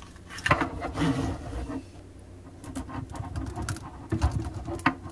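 Handling noise of braided stainless-steel faucet supply hoses and a plastic hose fitting being gathered and fed through a tight space under a sink. A longer rubbing, scraping stretch comes in the first two seconds, then scattered light clicks and knocks.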